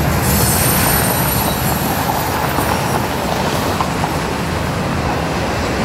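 Freight train rolling past: a steady rumble of wheels on rail, with a faint high-pitched ringing that fades out about halfway through.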